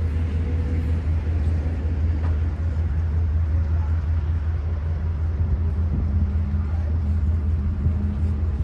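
Amtrak passenger train idling at the platform: a steady low engine hum that does not change.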